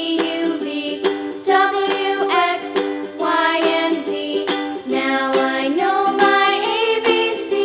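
Background music: a light melody line over a plucked-string accompaniment, with notes changing every half second or so.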